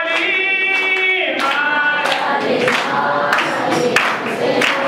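A man leading a Telugu worship song, with other voices singing along and hands clapping in time.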